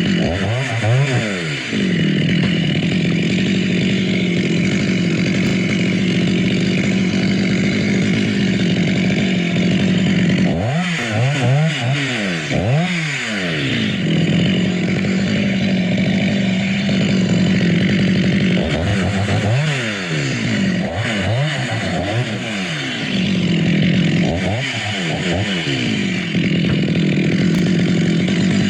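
Two-stroke chainsaw running at high revs, cutting a coconut palm trunk. Its engine pitch drops and climbs back again and again near the start, around the middle and several times in the last third.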